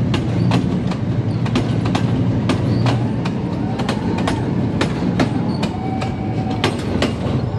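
Passenger train's carriages rolling past close by: a steady low rumble with the wheels clacking over rail joints about twice a second.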